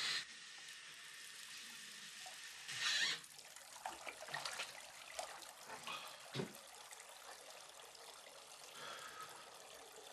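Bathroom tap running into a sink while a man splashes water onto his face with cupped hands. The splashes are loudest at the start and about three seconds in, with small drips and clicks after that.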